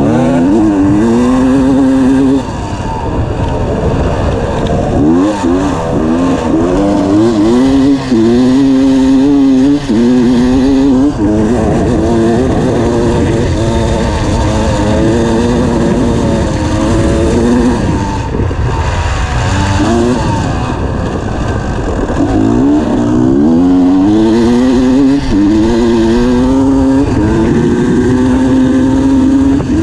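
Dirt bike engine heard onboard, revving hard and shifting up through the gears. Its pitch climbs in repeated rising sweeps, each one dropping back at the shift, and it holds steadier near the end.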